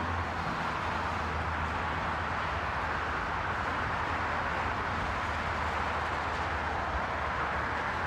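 Steady rush of highway traffic, with a low hum underneath.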